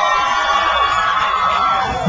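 Concert crowd cheering and whooping, with the live rock band's amplified music carrying on underneath.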